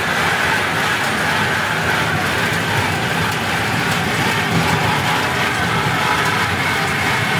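Slow park train running, heard from inside its open wooden passenger car: a steady, unbroken running noise of the car and its wheels.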